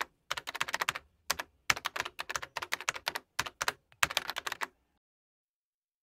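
Computer keyboard typing: rapid key clicks in several short runs, stopping a little before five seconds in.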